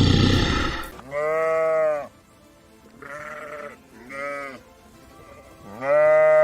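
A sheep bleating four times: two medium bleats, a short one, then a long loud one near the end. A rough, noisy sound cuts off about a second in.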